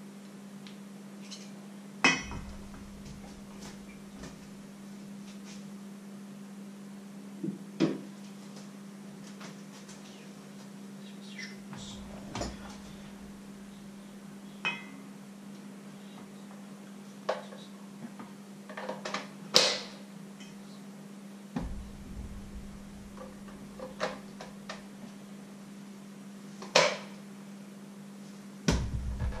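Scattered clinks and knocks of a metal utensil on a steel mixing bowl, and sharp clicks as an electric hand mixer is handled and its beaters are put into the batter, over a steady low hum.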